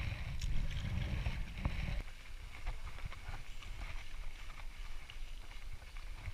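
Wind rumbling on the microphone over a kayak on open water, with paddle and water noise. About two seconds in it changes to a quieter bicycle ride on a road: rushing air and tyre noise with small clicks and rattles.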